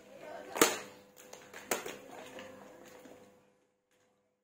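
Hard plastic toy figures knocking and clattering on a tiled floor: two sharp knocks about a second apart, the first the loudest, among smaller clicks and a faint voice. The sound cuts out completely about three and a half seconds in.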